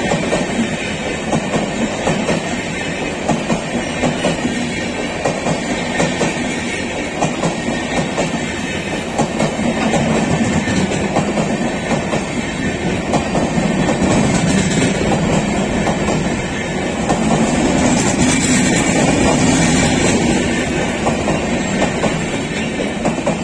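LHB passenger coaches of an express train passing close by at speed without stopping: a steady rumble with a regular clickety-clack of wheels running over the rail joints, louder in the second half.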